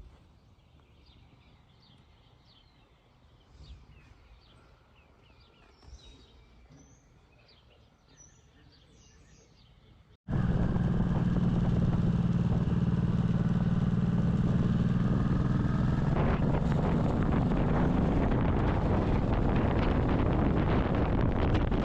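Birds chirping faintly over quiet outdoor background. About ten seconds in, this cuts abruptly to a loud, steady rumbling noise with a low hum, such as wind on the microphone or a running vehicle.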